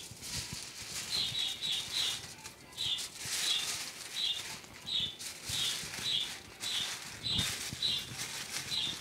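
Aluminium foil being crumpled and handled, crinkling in irregular bursts. Through it runs a short high chirp, repeating about twice a second.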